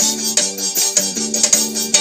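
Instrumental music with a quick, even beat, sustained keyboard-like notes and shaker percussion, no singing.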